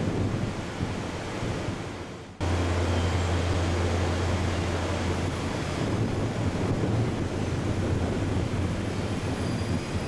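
Wind buffeting the microphone: a steady rumbling hiss that dips, breaks off and comes back louder a little over two seconds in.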